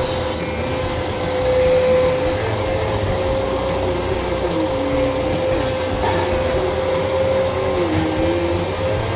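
Vacuum cleaner running steadily, a constant motor whine over the rush of air, with a lower hum that wavers up and down in pitch as it is worked over the floor.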